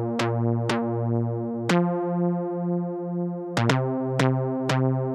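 TAL-Elek7ro software synthesizer playing held saw-wave notes, with a click at each of about seven note changes. The level swells and dips about twice a second as a sine LFO sweeps the pan.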